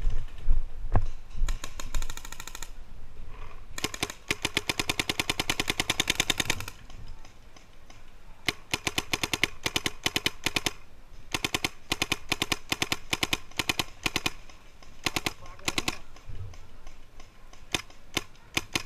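Paintball markers firing in rapid strings of shots, about ten a second, in several volleys. The longest volley lasts about three seconds, and shorter strings of a second or two follow.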